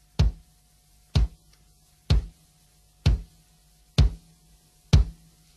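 A steady beat of single sharp, drum-like knocks, about one a second, over a faint steady low hum with a thin high tone.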